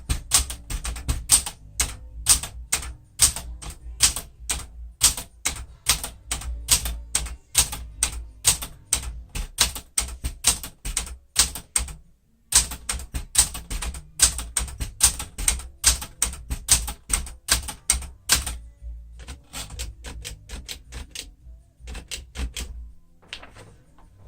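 Keys of a 1972 Smith-Corona Classic 10 manual portable typewriter striking the platen in a quick, steady run, about four to five strokes a second, as the uppercase letters are typed out. There is a brief pause about halfway, and the strokes thin out to a few slower ones near the end.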